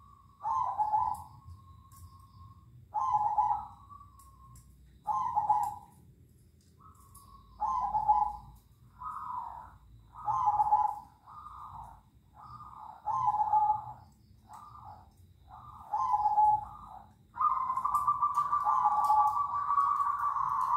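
Caged zebra doves (perkutut) cooing and answering each other. Their short phrases come every two to three seconds at first, then closer together, and near the end the calls overlap almost without a break.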